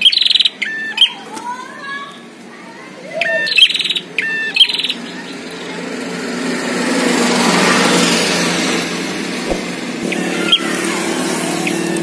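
Prinias (prenjak) singing in bursts of loud, rapid repeated chirps, three strong bursts in the first five seconds and a softer one near the end: a caged and a wild bird calling against each other in a territorial duel. A broad rushing noise swells and fades in the middle.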